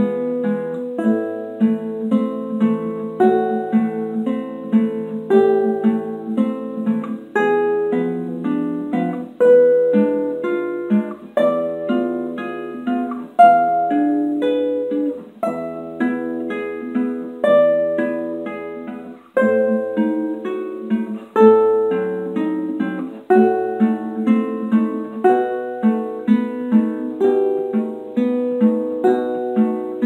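Solo nylon-string classical guitar played fingerstyle: a quick, continuous stream of plucked notes, with accented phrases about every two seconds.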